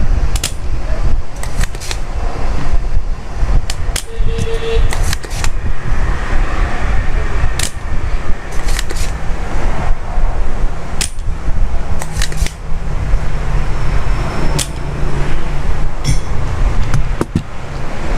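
A desoldering tool runs with a steady, loud rushing noise while the failed power-supply IC is being removed from the circuit board. Sharp clicks and taps of tools on the board come through it.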